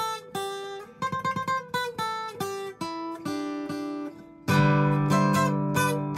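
Acoustic guitar played solo: single picked notes and a quick run of short notes, then a louder strummed chord about four and a half seconds in that rings on.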